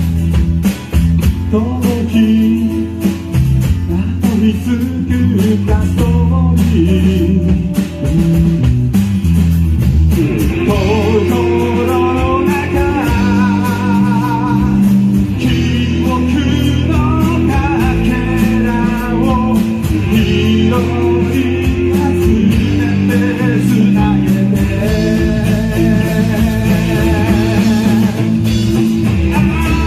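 Live rock band playing a song: drums, bass, and acoustic and electric guitars, with a man singing lead. A wavering lead melody stands out from about ten seconds in.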